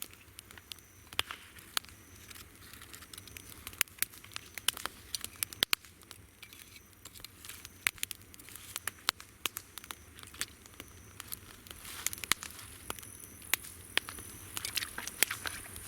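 Wood campfire crackling with frequent irregular sharp pops. Insects chirp over it, and a steady high insect trill comes in about three-quarters of the way through.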